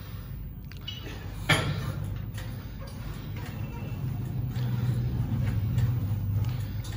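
Leg extension machine being worked through its repetitions, with a sharp metallic clank about a second and a half in and fainter knocks, over a steady low hum.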